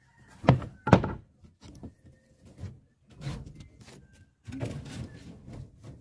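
Steel reinforcing bars of a rebar cage knocking against each other as the cage is handled: two sharp knocks about half a second apart in the first second, then softer knocks.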